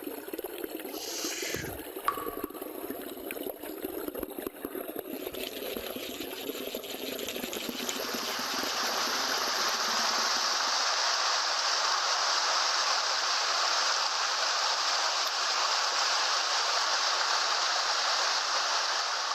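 Mountain stream water running over rocks, a steady rush that grows louder and brighter from about eight seconds in.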